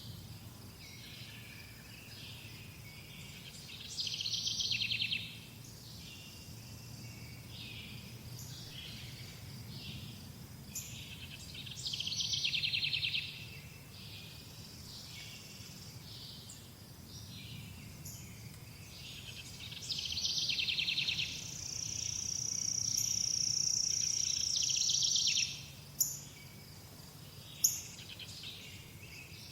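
Songbirds singing in short trilled phrases that come back about every eight seconds, over a steady low background rumble. A high, steady note is held for about four seconds late on, followed by two sharp clicks.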